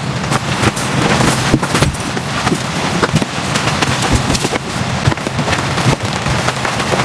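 Loud, dense, irregular crackling and popping, many sharp cracks a second.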